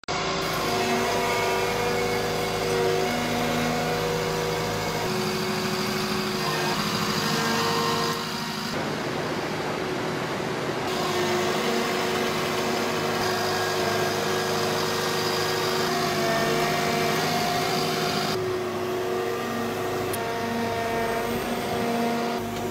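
Walking excavator's diesel engine and hydraulics running steadily as the machine moves, the pitch holding for a few seconds at a time and then shifting.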